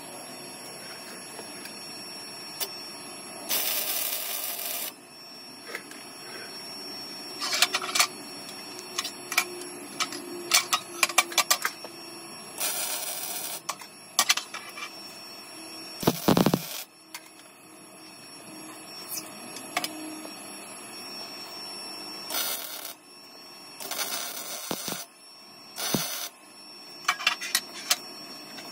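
Welding on a steel headlight bar in short runs: several bursts of hiss, each about a second long, with scattered clicks and knocks between them.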